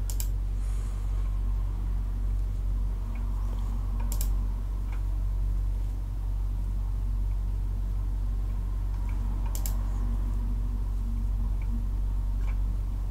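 Steady low hum with a few computer mouse clicks over it, the clearest right at the start, about four seconds in and near ten seconds.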